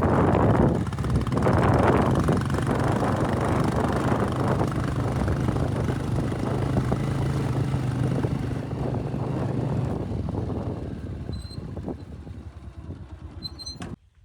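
A vehicle's engine running at a steady speed over a dirt farm track, with road noise, fading away about ten seconds in. A few faint high chirps come near the end.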